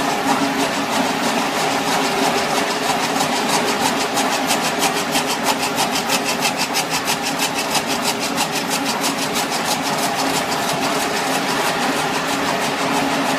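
Helical tomotherapy treatment machine running during irradiation: a steady mechanical hum, with a stretch of rapid, even clicking from about four to ten seconds in.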